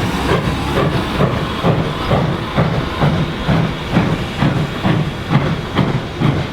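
Reading & Northern 425, a 4-6-2 Pacific steam locomotive, working under steam: even exhaust chuffs about two a second over a steady hiss of steam.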